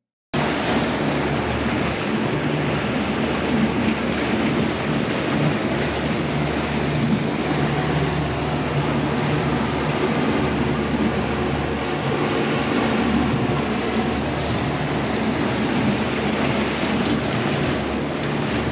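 A boat under way across open water: a steady rush of wind buffeting the microphone and water against the hull, over the low drone of the boat's engine.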